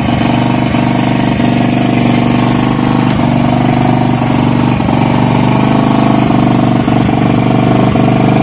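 Onboard engine running steadily at an even speed: a constant, loud low hum with a fast regular pulse.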